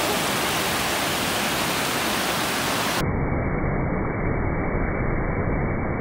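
Mountain creek cascading over boulders, a steady rush of water. About halfway it abruptly turns deep and dull, the high part of the sound cut off, as the audio is slowed down for slow-motion playback.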